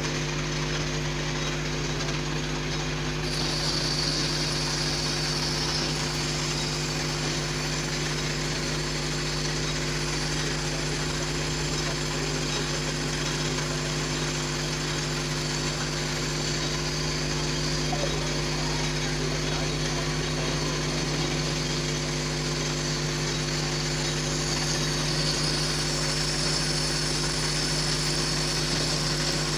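Metal lathe running steadily with a constant motor hum, and a higher hiss that comes in a few seconds in and again near the end.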